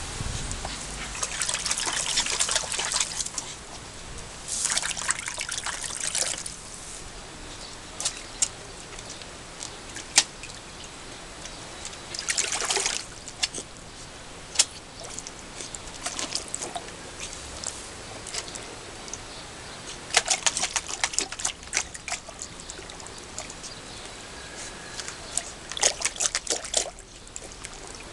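Water pouring and splashing during a Scottish terrier's bath in a plastic tub, in about five bursts of a second or two, with a few sharp clicks in between.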